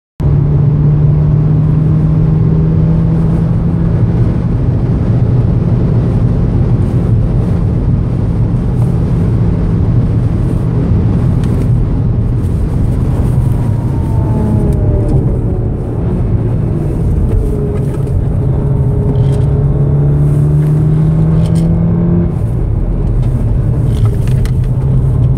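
2014 VW Golf VII R's turbocharged 2.0-litre four-cylinder engine heard from inside the cabin, pulling hard at high speed over steady road and wind noise. Around the middle the engine note dips, then climbs again and falls sharply a few seconds before the end.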